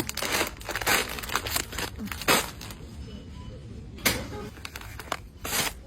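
Items and packaging being handled: a string of sharp knocks and clicks with rustling between them, the loudest a little over two seconds in.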